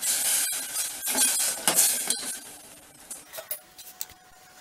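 Steel ladle stirring and scraping lumps of palm jaggery in water in a stainless steel saucepan, metal clinking against the pan for about two seconds, then a few light taps.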